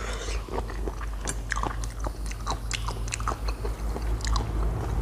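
Close-up chewing and biting of pickled shrimp and spicy papaya salad: many short wet smacks and crunchy clicks.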